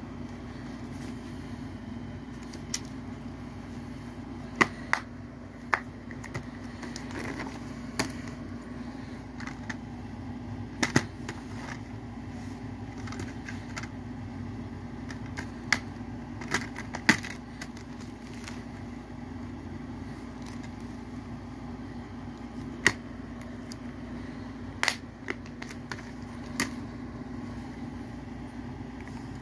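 Plastic Blu-ray cases clicking and tapping as they are handled, opened and closed: scattered sharp clicks, irregularly spaced, over a steady low hum.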